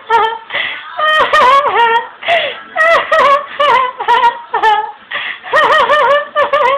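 A young woman giggling in a long run of high-pitched, wavering bursts with short gaps between them, a giggle she herself thinks sounds like crying.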